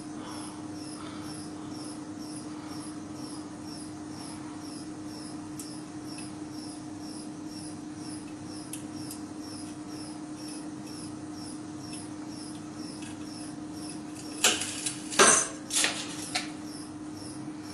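Carbon-textile-reinforced geopolymer panel cracking under four-point bending: about five sharp cracks in quick succession near the end, the loudest in the middle of the run, as its top face fractures beside a loading roller. Under it, a steady hum and a faint regular high ticking.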